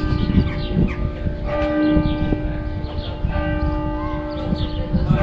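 Church bells ringing, with a fresh ringing strike about every two seconds, each one hanging on as it fades.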